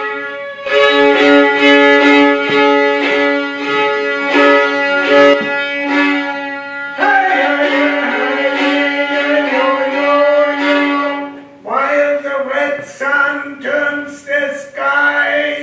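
Live violin (fiddle) playing long held notes, then a run of shorter, wavering notes in the last few seconds.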